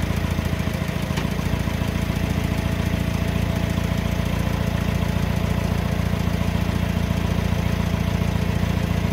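JCB machine's diesel engine idling steadily, with a fast, even pulse.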